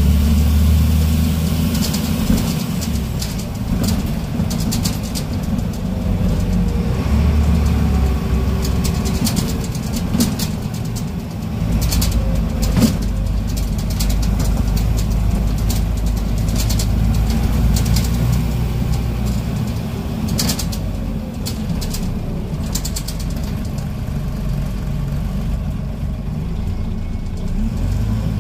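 Scania N94UB bus heard from inside the passenger saloon while it is under way: a low diesel engine drone that swells and eases. Frequent short rattles and clicks come from the body and fittings.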